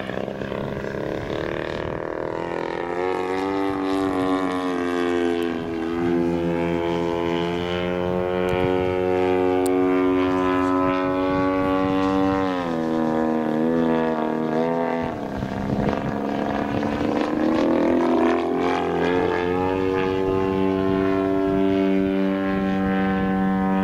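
Radio-controlled model airplane's motor and propeller running in flight, a steady pitched drone. Its pitch climbs a few seconds in, holds, drops sharply about two-thirds through, climbs again and falls away at the end, as the throttle changes and the plane passes.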